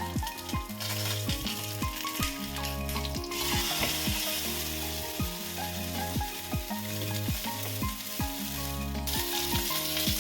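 Food sizzling as it fries in a pan on the stovetop, over background music with a steady beat. The sizzle grows louder about three seconds in and drops away sharply near the end.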